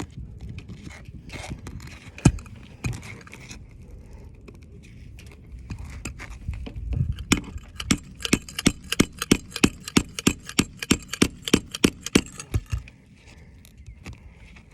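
A metal hand tool working an asphalt roof shingle loose: scattered scrapes and knocks, then a run of about twenty sharp taps, close to four a second, from about seven seconds in until nearly thirteen.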